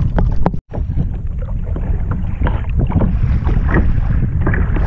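Wind buffeting the microphone of a bow-mounted camera on a moving kayak, with water slapping and splashing against the hull over choppy water. The sound cuts out for a split second about half a second in.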